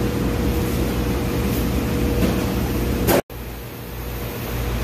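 Steady hum of air conditioning and room noise with a faint steady tone, broken by a sudden brief dropout a little over three seconds in, after which it comes back quieter and swells again.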